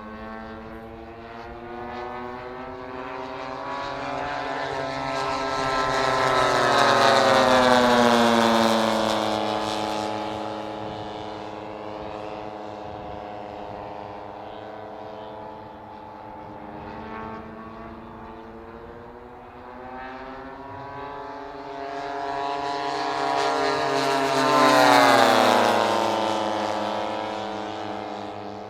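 Radio-controlled scale model Grumman F8F Bearcat warbirds with propeller engines flying low passes: the engine note swells to loud twice, about a third of the way in and near the end, and drops in pitch each time as the models pass and fly away.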